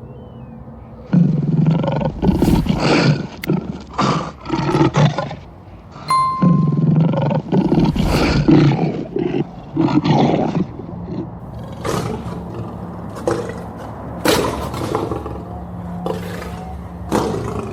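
Lion roaring in two loud, rough bouts of about four seconds each, followed by quieter, broken sounds.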